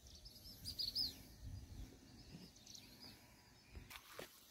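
Small birds chirping in short high calls, a flurry about a second in and a few more near the middle, over a faint low rumble of wind on the microphone.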